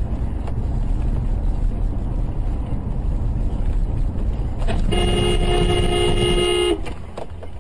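Steady road and engine rumble of a car driving in traffic, then a car horn blown in one steady blast of about two seconds, starting about five seconds in.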